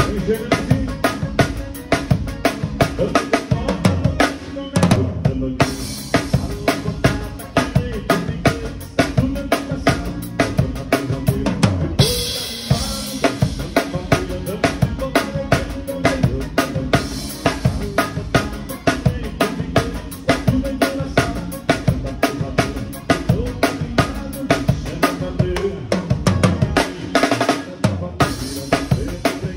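A drum kit played along to a recorded vanera, the southern Brazilian gaúcho dance rhythm. The bass drum and snare keep a fast, steady beat with rimshots over the band's backing track.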